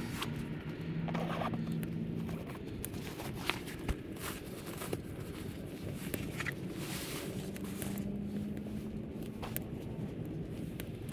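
Handling noises: rustling and scraping with scattered sharp clicks and knocks as camping gear is moved about.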